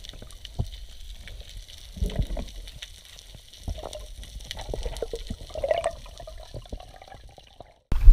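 Underwater sound picked up by a camera in its housing on a reef: a muffled water hush with many scattered sharp clicks and a few dull knocks. Near the end it cuts suddenly to much louder water sloshing at the surface.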